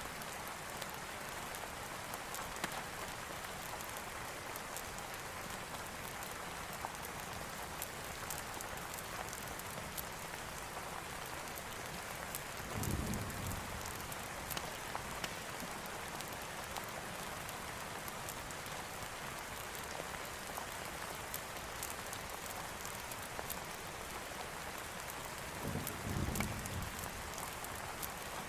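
Steady rainfall, a continuous even hiss with scattered faint clicks. Twice, about a third of the way in and again near the end, a brief low rumble of distant thunder rises and fades over about a second.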